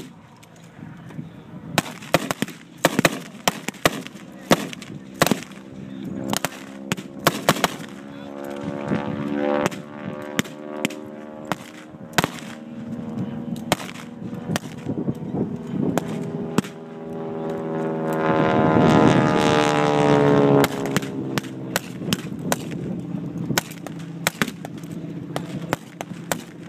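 Scattered blank small-arms fire, with sharp cracks in quick runs, and a vehicle engine revving up and down. The engine is loudest about two-thirds of the way through.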